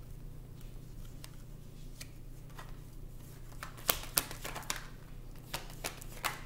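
A deck of tarot cards shuffled by hand: soft card noise with a run of sharp snaps about four seconds in and a few more near the end.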